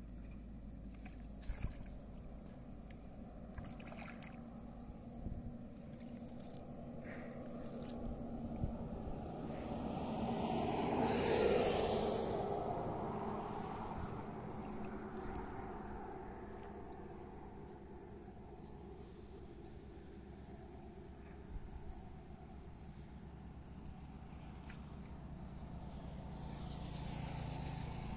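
Outdoor ambience in which a passing motor vehicle swells to a peak about halfway through and fades away, over a steady low hum and a faint, regular high ticking.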